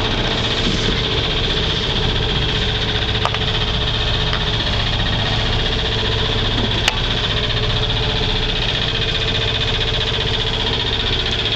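A yacht's engine running steadily with a constant hum and vibration, with a couple of faint clicks about three and seven seconds in.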